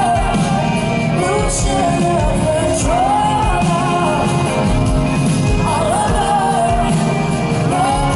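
Live pop-rock band music, with a singing voice carrying a wavering melody over bass and drums.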